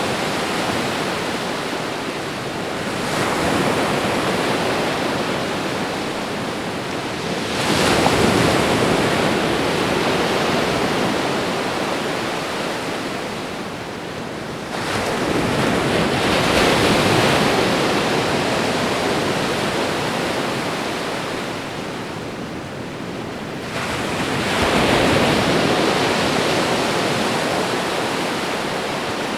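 Ocean waves breaking on a shore: a steady rushing wash that swells four times as waves come in, each surge ebbing away slowly before the next.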